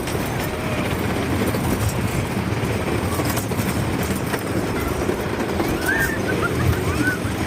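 Roller coaster train running along its track: a steady rumble and rattle of the wheels on the rails, a little rough.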